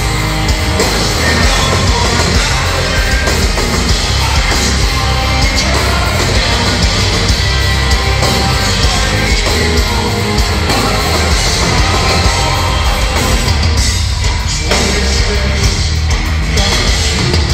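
Metal band playing live and loud: distorted electric guitars, bass and drums, with a male voice singing over them. The sound is a loud concert-hall mix picked up from the crowd.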